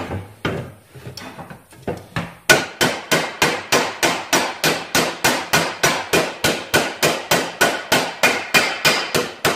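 Auto-body hammer striking a rusty steel panel section from a truck's quarter panel to straighten it: a few scattered blows, then a steady run of about three to four quick strikes a second.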